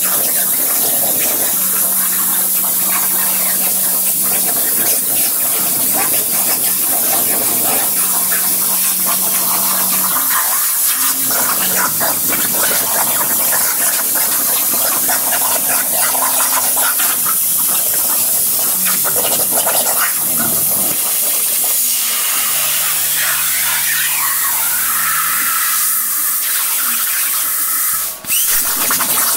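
CNC plasma cutter torch cutting 3/16-inch steel plate: a loud, steady rushing hiss from the arc, with a low hum coming and going. Near the end the arc cuts out for a moment and then restarts, as the torch ends one cut and pierces for the next.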